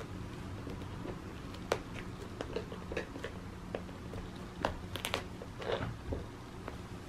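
A cat playing on a Petstages Scratch And Roll's artificial-grass surface, pawing and grabbing at a feather wand: scattered claw scratches, light taps and rustles, busiest about halfway through, over a steady low hum.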